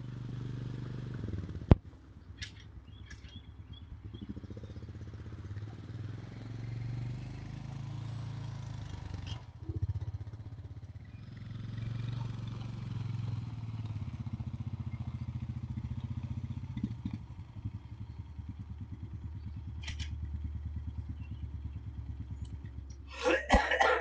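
An engine running with a rough, rapidly pulsing note that rises and falls in pitch. There is a sharp click about two seconds in and a short clatter near the end.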